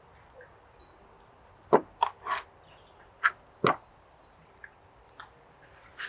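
A handful of sharp knocks, five of them within about two seconds, then two faint ticks.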